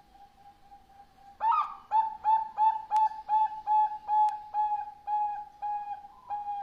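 Zebra dove (perkutut) singing. A faint drawn-out coo is followed, about a second and a half in, by a loud run of about a dozen evenly spaced coo notes at roughly three a second. Two faint sharp clicks fall midway.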